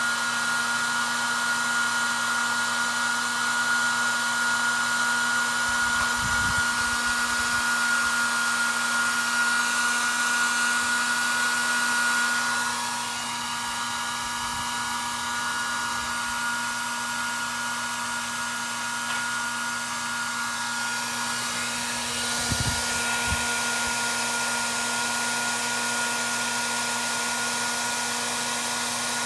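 Hand-held hot-air dryer running steadily with a high whine, a little quieter from about twelve seconds in. There are a couple of faint low thumps.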